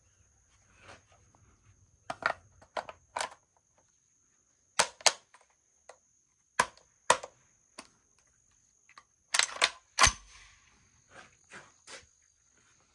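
About a dozen sharp clacks and clicks from a Tokarev TBP-12 bullpup shotgun being handled and loaded, several coming in quick pairs, the loudest about ten seconds in.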